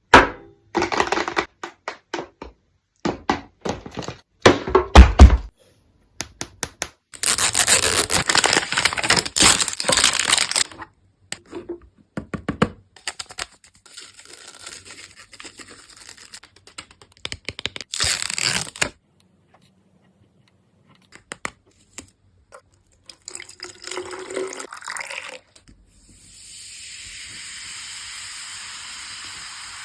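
Gift packaging being handled and torn open: irregular bursts of rustling and tearing with clicks and knocks, and a loud thump about five seconds in. Near the end a steady hiss starts and carries on.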